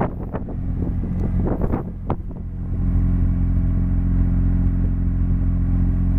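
Mazda RX-7 FD's twin-turbo 13B-REW two-rotor rotary engine idling steadily, heard at the exhaust tailpipe. A few sharp knocks or gusts on the microphone come in the first two seconds, and the idle is louder and steadier from about two and a half seconds in.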